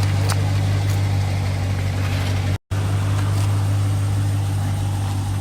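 Dodge Charger R/T's 5.7-litre Hemi V8 idling steadily with a low, even hum; the sound cuts out for a split second about two and a half seconds in.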